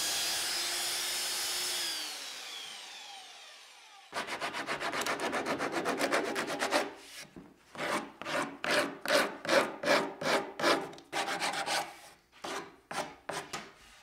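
A belt sander running, then winding down over about two seconds, its pitch falling as it stops. Then a hand sanding block rubbed back and forth on the end of a wooden boat stem in quick strokes, close together at first, then slower and more spaced out.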